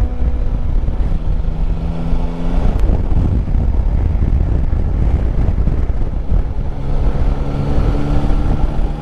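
Yamaha Tracer 9 GT's 890 cc three-cylinder engine running at road speed under heavy wind buffeting on the microphone. The engine note changes about three seconds in and settles into a steady tone again in the second half.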